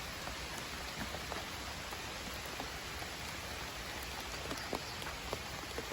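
Steady outdoor hiss with scattered faint light ticks, like a light patter.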